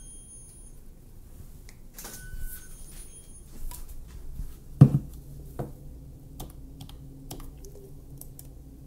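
DSLR shutter clicks as test frames are fired with speedlights, two of them followed by a faint high whine lasting about a second. There are scattered light clicks and handling knocks throughout, with one louder thump about five seconds in.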